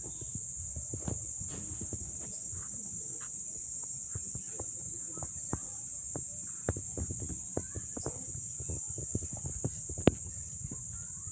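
Steady high-pitched insect chorus, with scattered soft knocks and scuffs and one sharper click about ten seconds in.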